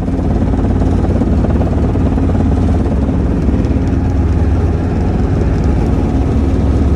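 A vehicle running steadily and loudly: a deep, even hum with a fast fine flutter and a haze of running noise over it.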